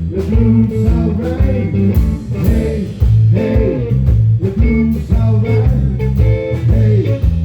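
Live electric blues band playing an instrumental passage: bent lead notes over a steady bass line and drums.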